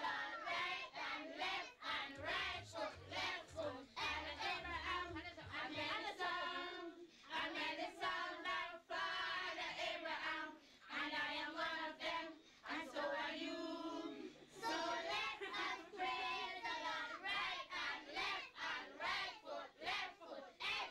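A group of voices, children among them, singing together, with rhythmic hand-clapping along with the song.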